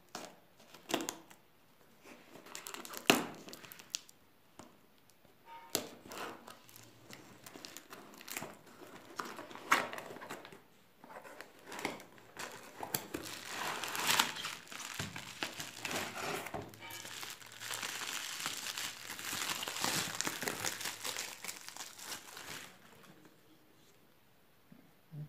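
A cardboard parcel being opened by hand: scattered sharp clicks and scrapes as packing tape is cut and the carton pulled open, then plastic bubble wrap crinkling steadily as it is unwrapped, stopping shortly before the end.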